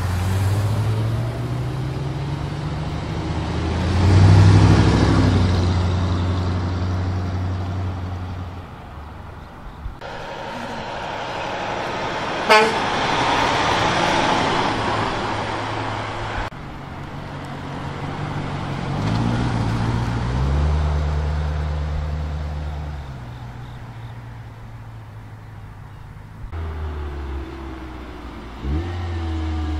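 A series of vehicles driving past one after another, engines revving as they pull away: first a C3 Corvette's V8, then a semi-truck's diesel with a brief sharp burst in the middle of its pass, then more cars accelerating by, the last a Hyundai Genesis Coupe.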